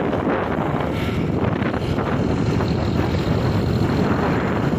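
Steady wind noise rushing over the microphone of a moving motorbike, with the bike's engine and tyre noise running underneath.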